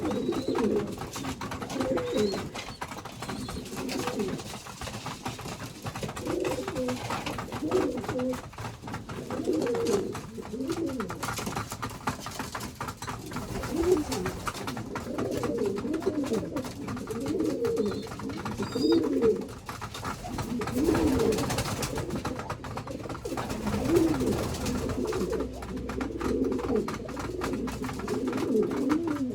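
Several domestic pigeons cooing continuously, their coos overlapping one another, each rising and falling in pitch.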